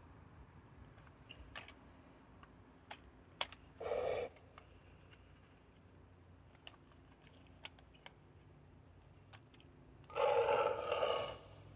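Scattered light plastic clicks and snaps as the parts of a VTech Switch and Go velociraptor-to-helicopter toy are folded and turned by hand. Two short louder sounds break in, one about four seconds in and a longer one near the end.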